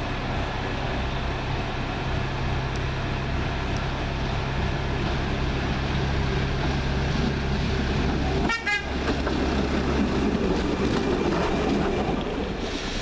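Class 139 Parry People Mover railcar pulling away and passing: a steady low engine hum throughout, with the rumble of its wheels on the track growing louder in the last few seconds as it goes by.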